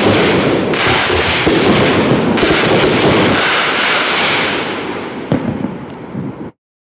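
Black Cat Pro 200 firework cake firing a rapid run of overlapping bangs and shell bursts. They ease off after about three seconds into a fading echo, with a last few pops near the end before the sound cuts off abruptly.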